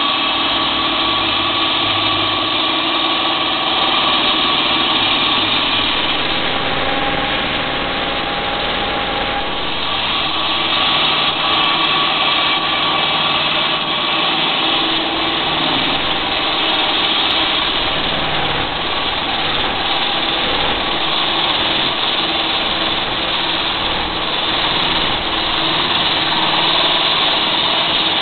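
Concrete groove-cutting machine with a 30-inch blade and a 15 hp motor, running loudly and steadily.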